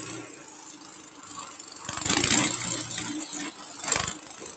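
Small engine of a Tote Gote trail bike running as it climbs a hill, getting louder about two seconds in and again briefly near the end.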